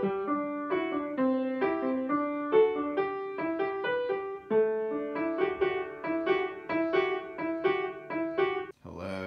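Piano music: a quick melody of evenly spaced notes, stopping shortly before the end.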